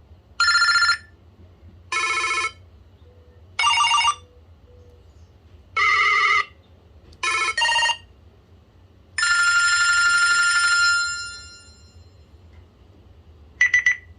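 BlackBerry Curve 8520 alert tones from the phone's speaker: a string of short electronic chimes and beeps, one every second or two, each with a different pitch pattern. About nine seconds in, a longer chime rings for about two seconds and fades out.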